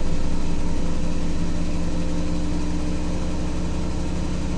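Profilo washing machine running with a fast, even pulsing beat and a steady hum, the helicopter-like sound it is known for here, slowly easing in loudness.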